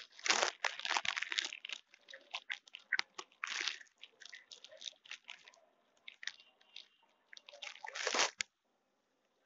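A white rabbit biting and chewing leafy greens close to the microphone: quick, irregular crunches. They come loudest in clusters near the start, in the middle and shortly before the end, with a quieter stretch in between.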